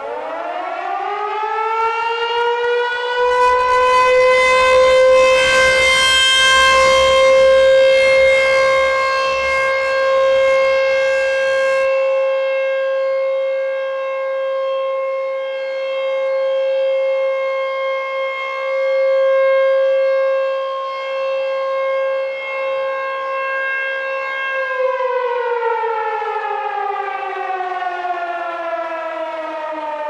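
ASC T-128 rotating electronic siren sounding an alert tone. It winds up to a steady pitch in about two seconds, holds it, then winds down from about three-quarters of the way through. Its loudness swells and dips as the rotating horn sweeps around.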